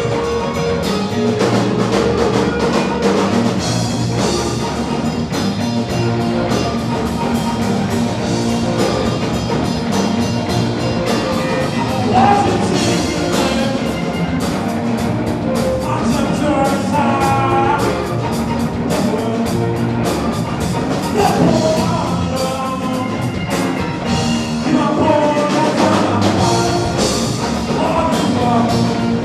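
A live rock band playing a song: electric guitars over a drum kit keeping a steady beat, with a keyboard on stage.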